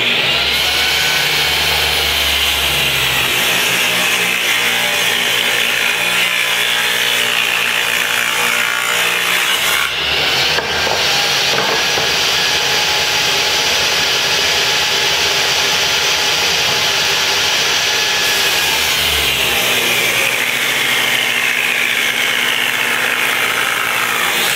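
Table saw running and ripping a hard maple vise jaw stood on edge against the fence, the first cut of a rabbet along the jaw's top edge. The sound shifts about ten seconds in and again a little before the end as the saw goes from one board to the next.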